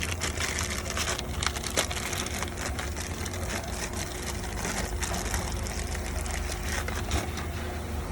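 Wiring harness and plastic parts being handled, with small, irregular clicks and rustles over a steady low hum.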